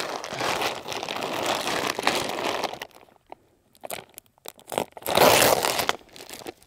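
Sack of corn being handled and emptied: rustling and crunching of the bag and grain in two spells, the first about three seconds long, the second about a second, with a few scattered clicks between them.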